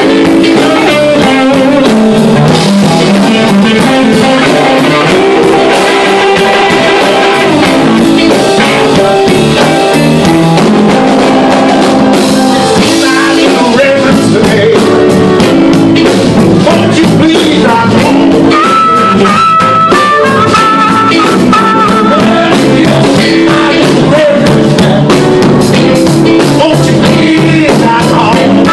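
Live blues band playing, with electric guitar, drum kit and keyboard, and a man singing over it.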